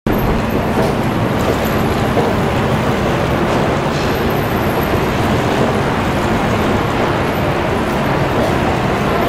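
Steady city street traffic noise: cars and buses running through a busy intersection, engine hum and tyre noise blended into one continuous wash.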